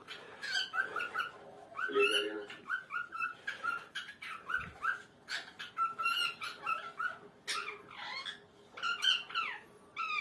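Pet parrot chattering: a fast, busy run of short chirps and whistled notes.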